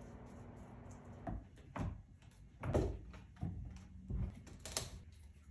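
A run of about six dull knocks and thumps, the loudest near the middle, over a low steady hum.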